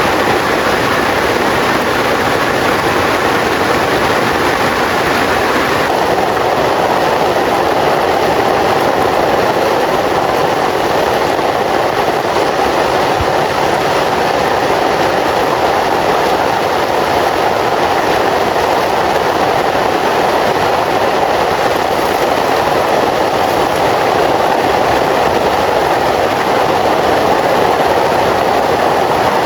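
Heavy rain pouring down steadily and loudly, with a dense even noise and no breaks.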